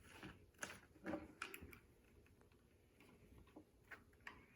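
Near silence with a few faint clicks and taps from handling a toy RC plane and its battery plug. No motor runs because the battery is dead.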